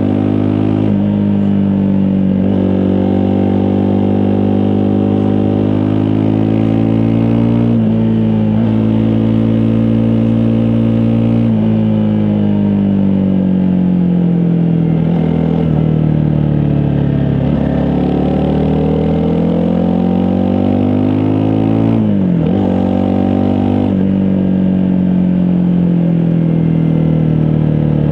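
Honda CRF250 Rally's single-cylinder engine under way, revving up and dropping back in steps as it shifts up through the gears, then easing off and building revs again. The revs fall sharply once, about 22 seconds in.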